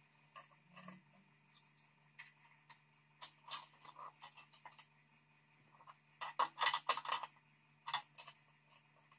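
Metal-on-metal clinks and clicks of a wrench and brass fittings as a copper air line is fitted to an air compressor's pump head: scattered taps, a quick run of rattling clicks a little past halfway, and a last pair near the end.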